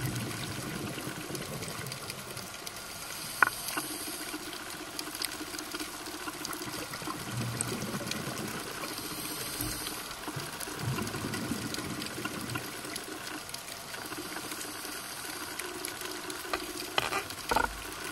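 Underwater sound: a steady watery hiss with low bubbling rumbles now and then, one sharp click about three and a half seconds in, and a few clicks near the end.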